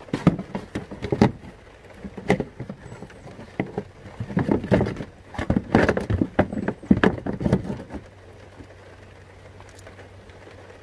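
Plastic upper radiator fan shroud being worked into place in the engine bay: a run of knocks, taps and scraping rattles that stops about eight seconds in.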